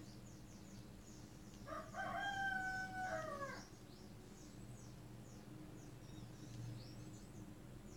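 A rooster crows once, about two seconds in, a held call that falls at its end. Small birds chirp throughout.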